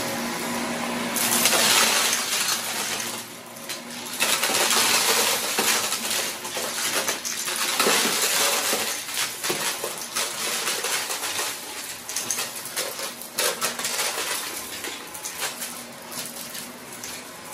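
Cordless stick vacuum running over carpet and sucking up small hard crunchy debris, the bits rattling and crackling through the cleaner head and tube over the steady motor hum. The rattling comes in heavy spells in the first half and thins out near the end.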